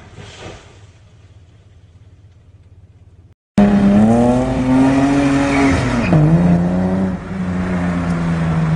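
A car engine fades into the distance. After a sudden cut, a BMW drifting engine runs loud at high revs: it climbs in pitch, dips sharply about six seconds in, then holds a steady high note.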